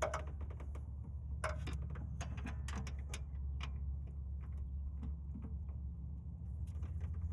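Hand ratchet clicking in short runs as a bolt is worked by hand, over a steady low hum.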